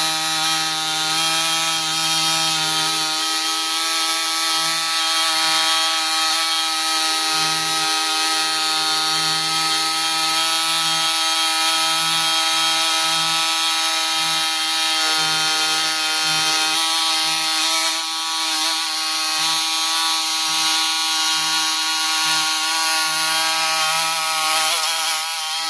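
Power tool with a sanding disc running steadily against a steel flywheel's face, sanding off burnt oil: a constant whine with a rasping hiss. It cuts off just before the end.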